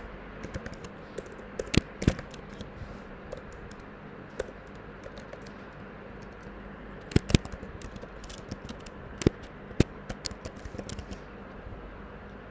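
Computer keyboard typing: irregular runs of key clicks with a few louder single strikes, over a steady low hum.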